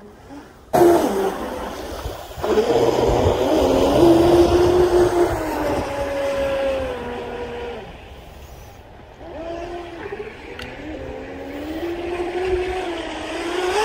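Deltaforce 35 RC boat motor running hard on the water. It comes on suddenly under a second in, its pitch rises and falls with the throttle, drops off around eight seconds in and climbs again toward the end. The boat is running with its trim tabs fully up, riding high out of the water and bouncing.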